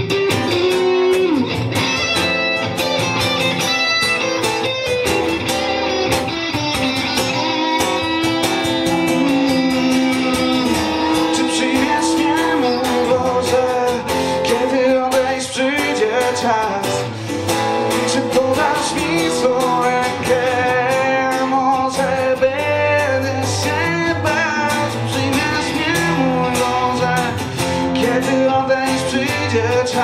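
An electric guitar and a strummed acoustic guitar playing together live, an instrumental passage of the song.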